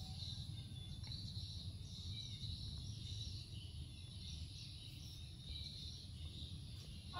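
Background ambience: a steady low rumble with faint, fluttering high chirping, with no machine running.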